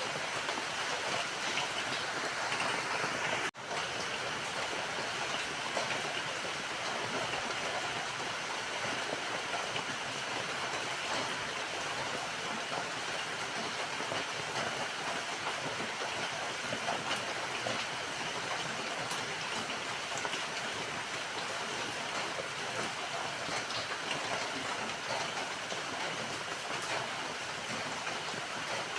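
Steady rain falling, a dense, even hiss of many drops, broken only by a momentary drop in level about three and a half seconds in.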